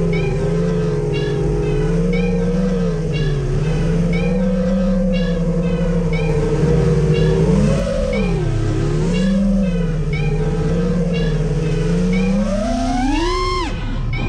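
FPV acro quadcopter's brushless motors and propellers whining, the pitch wavering up and down with the throttle through turns and loops. Near the end the pitch rises steeply as the throttle is punched, then drops away as it is chopped.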